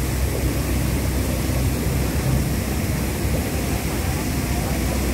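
Steady rushing hiss of the fountain's high-pressure water jets spraying the mist screen, with a low rumble underneath.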